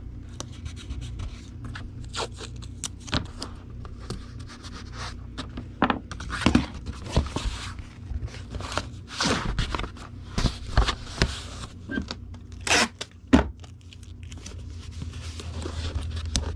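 Packing tape pulled off the roll and pressed down, mixed with scraping and rustling as a cardboard comic book mailer is handled: a string of irregular short tearing and scraping noises over a steady low hum.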